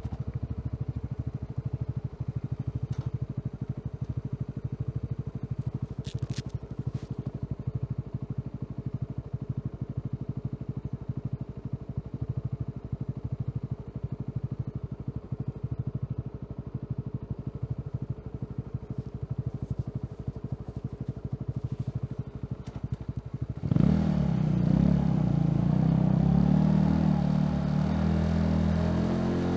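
Honda CB150R's single-cylinder four-stroke engine idling with a steady, fast, even beat. Near the end it revs up and gets louder, the pitch rising and falling.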